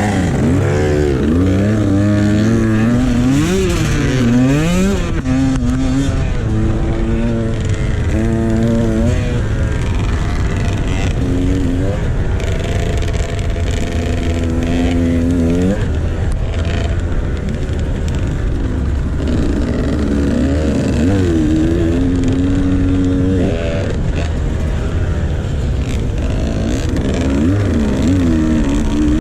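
Dirt bike engine revving up and dropping back again and again as the bike rides and shifts through the track, over a steady low rumble.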